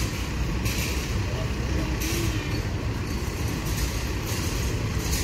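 Steady low rumble of idling diesel bus engines, with a stretch of hissing from about a second in.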